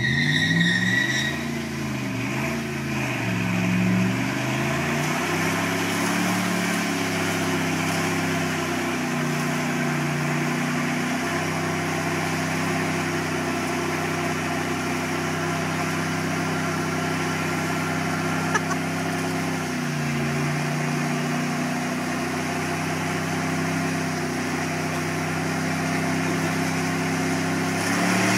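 Dodge Dakota pickup engine held at high revs during a burnout, the rear tires spinning on the pavement and smoking. The revs swing up and down for the first few seconds, then hold steady, dipping briefly about two-thirds of the way through.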